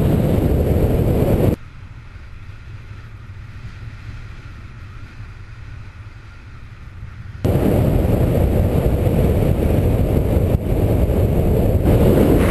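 Wind rushing over the camera microphone in paraglider flight, a loud low rumble. It drops suddenly to a much quieter hiss about one and a half seconds in and comes back just as suddenly about seven seconds in.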